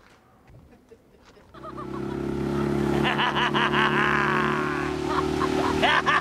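Dinghy outboard motor running at a steady speed, coming in suddenly about a second and a half in, with people laughing over it.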